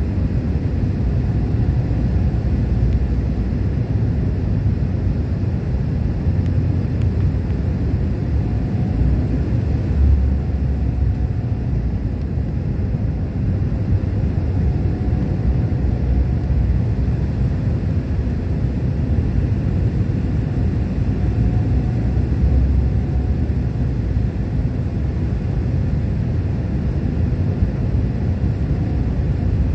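Steady low rumble of engine and airflow noise inside a passenger airliner's cabin as it descends on approach to landing.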